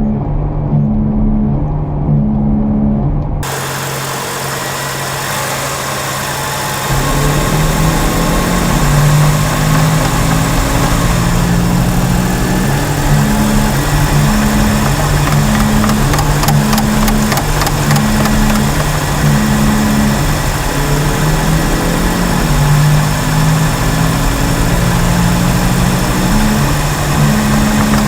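Badly worn front wheel bearing droning while the car is driven: a low hum that swells and fades in a regular rhythm, a little over once a second, over road and tyre noise, its pitch drifting up and down with road speed. The drone is the sign of the worn bearing.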